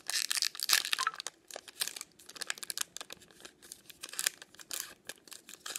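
A baseball-card pack wrapper crinkled and torn open by hand: a dense run of crackles and rustles, loudest in the first second.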